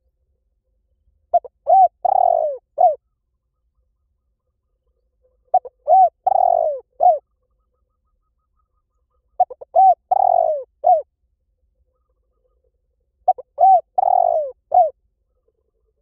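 Spotted dove cooing: four identical phrases about every four seconds, each a few short coos around one longer, wavering coo. It is the repeated call used to lure spotted doves in.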